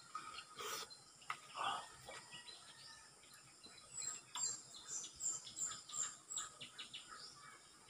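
Soft wet mouth sounds of soursop pulp being sucked and eaten in the first two seconds, then a bird chirping a quick run of short, high notes from about four seconds in.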